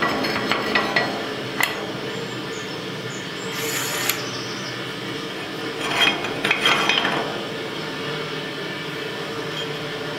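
Steel clinks and scrapes as a four-link suspension bar with a rod end is slid and worked into its bracket on the axle housing. The clicks come in clusters at the start, around four seconds in and again about six to seven seconds in, over a steady low hum.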